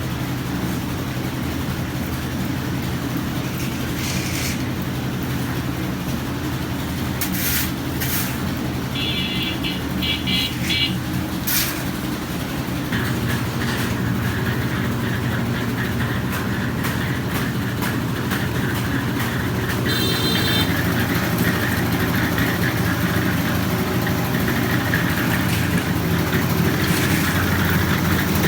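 A small engine running steadily, its note getting fuller and slightly louder about 13 seconds in. Short high-pitched chirps come twice, partway through.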